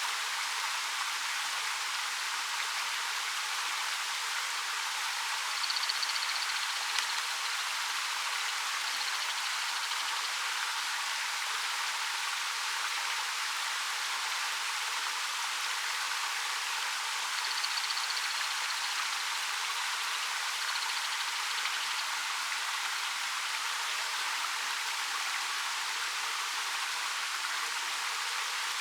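A 13 m waterfall pouring over dark rock: a steady, even rush of falling water. Two brief faint high chirps stand out, about a fifth and about two thirds of the way through.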